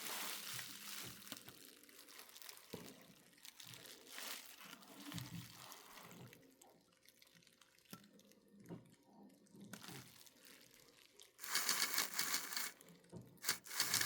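Faint clicks and rustles of a model locomotive being handled, then about eleven seconds in the model steam locomotive's small electric motor and gear drive start whirring steadily, cut out briefly, and start again near the end.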